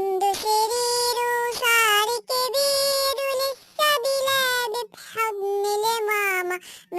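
A children's song sung in a high, artificial-sounding voice, in long held notes broken into short phrases, with music.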